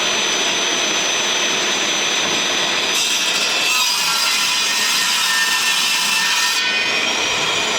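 Power tool cutting MDF board. The motor runs steadily throughout, and the sound changes from about three seconds in to nearly seven seconds as the blade works through the board.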